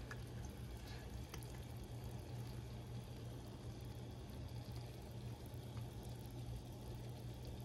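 Soft, steady sizzle of thinly sliced flank steak cooking in soy sauce and water in a nonstick frying pan, over a low steady hum, with a few faint clicks.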